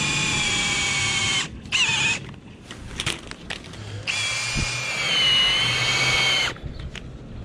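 Cordless drill spinning a flex shaft drain-cleaning cable in a sewer pipe: a steady motor whine that stops about a second and a half in, a short burst of the trigger near two seconds, then runs again from about four seconds to six and a half. Clicks and knocks from the cable between and after the runs.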